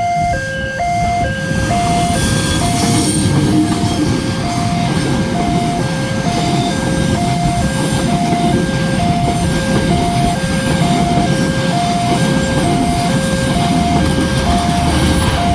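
Railway level-crossing alarm sounding its fast two-tone warning, switching between a high and a low tone about three times a second. Under it, a train passes slowly over the crossing with a steady rolling noise from about a second in.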